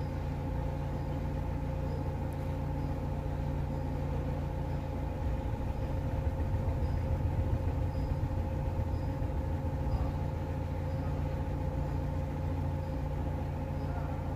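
Mercedes-Benz W210's engine idling steadily, heard from inside the cabin, running as the automatic transmission needs when its oil is topped up. It gets a little louder for a few seconds about five seconds in.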